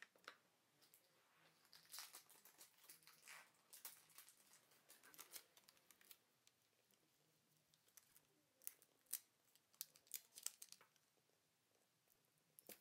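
Faint crackling and crinkling of a small strip of adhesive tape being peeled off a laptop's LCD display cable, followed later by a run of sharp clicks.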